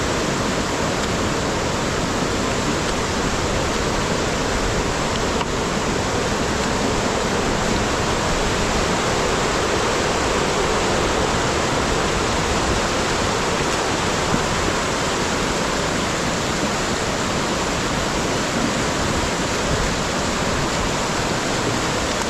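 Steady, loud rush of fast-flowing floodwater, an even noise that stays the same throughout.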